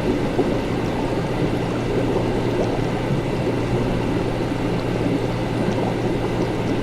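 Laboratory ambience: liquid bubbling and churning steadily over a constant low hum.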